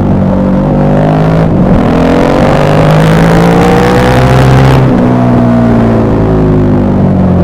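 KTM 1190 Adventure R's LC8 V-twin engine pulling under way: the revs climb steadily for about three seconds, then drop sharply about five seconds in, as at a gear change, and run on steadily.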